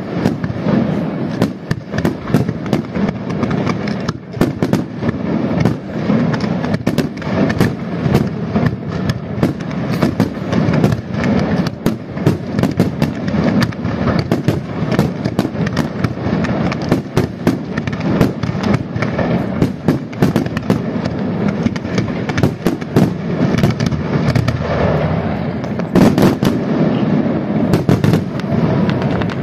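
Fireworks display in full barrage: rapid, overlapping bangs and crackles with no let-up, and a cluster of louder bangs near the end.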